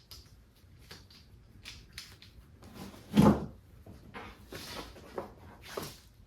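Handling noise of a ratchet strap being shoved down into a fabric storage pouch: scattered light knocks and rustling, with one louder thump about three seconds in.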